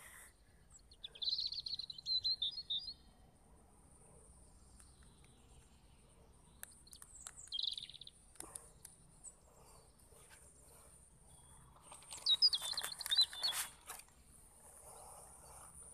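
A small bird chirps in short, high twittering phrases about a second in, again briefly near the middle, and again about twelve seconds in, over a steady high insect buzz. A few light knocks and rustles come with it.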